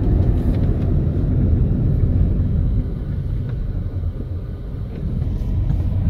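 Car being driven along a road: a steady low rumble of engine and tyre noise, easing off slightly about halfway through.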